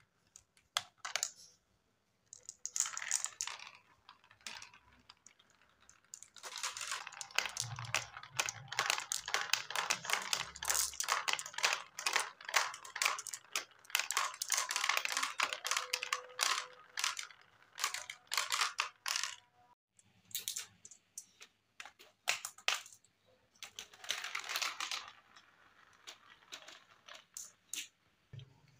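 Marbles rolling and clattering down a plastic marble run, clicking over the cascade steps and chutes. Short rolls come about 1 and 3 seconds in; from about 6 to 20 seconds a dense run of rapid clicks as many marbles tumble down together; another short cluster comes near 24 seconds.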